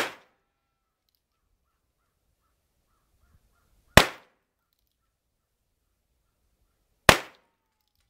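Three shots from a Heritage Rough Rider single-action .22 LR revolver, one right at the start, one about four seconds later and one about three seconds after that, each a sharp crack that dies away within a fraction of a second.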